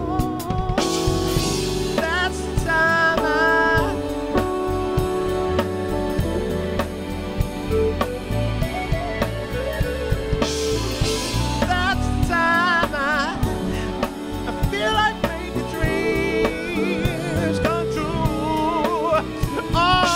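A live soul band plays with drum kit, electric guitar and keyboards. Over the groove, a melodic lead line with heavy vibrato comes in in short phrases.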